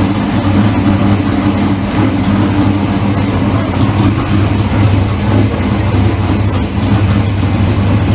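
Race car engine running loudly at a steady idle as it is tuned up.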